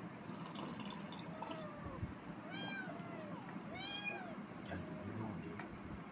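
Kittens meowing: a few faint short mews, then two clear high meows in the middle, each rising and falling in pitch.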